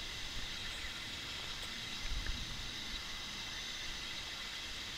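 Steady background hiss with faint steady high tones, and a short low rumble about two seconds in.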